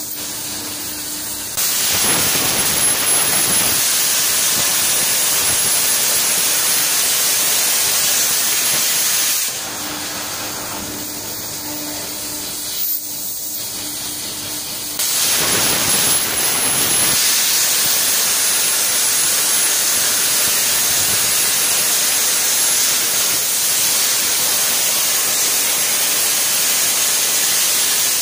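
Hypertherm MAXPRO200 plasma torch on a CNC gantry table cutting metal plate: a loud, steady hiss with a thin high whistle, starting about two seconds in and again about fifteen seconds in. In the pause between cuts, about six seconds long, a quieter hiss with a low hum.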